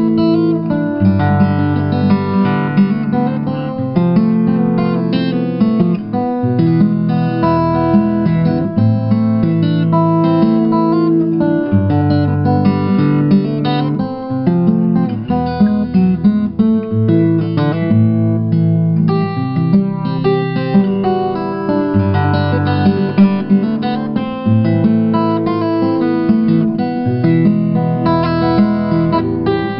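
Background music: acoustic guitar playing chords, the bass note changing every second or two.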